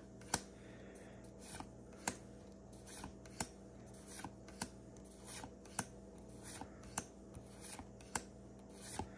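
A pack of Pokémon trading cards flipped through by hand, each card slid from the front to the back of the stack with a short, sharp snap, about one to two a second, with soft card-on-card rubbing between.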